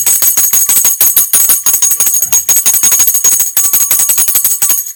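Dinner bell rung hard and fast, a loud continuous metallic jangle of about eight strikes a second with a high ring, calling the household to dinner; it breaks off briefly near the end.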